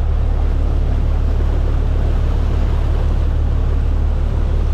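Steady low rumble of a fishing boat's engine under way, with water rushing and churning along the hull.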